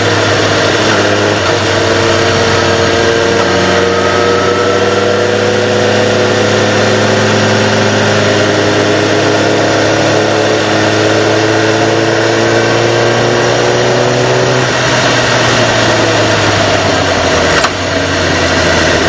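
Sport motorcycle engine pulling at part throttle in third gear, its pitch climbing slowly for about fifteen seconds, then falling as the throttle closes; near the end there is a brief dip as it shifts down to second. A steady rush of wind noise runs over the engine.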